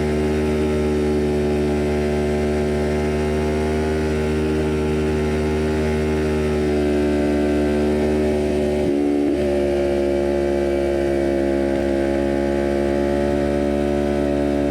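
Kawasaki Ninja 400 parallel-twin engine running under way through a full cat-delete Jeskap exhaust, a steady high-revving buzz. Engine speed dips briefly about nine seconds in, then holds steady again.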